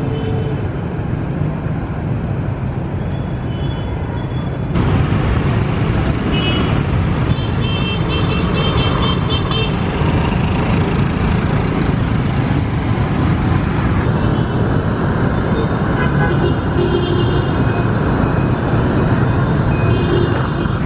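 Dense rush-hour street traffic of motorbikes and cars running past, with a steady engine and tyre din and short repeated horn beeps now and then. The din gets louder about five seconds in.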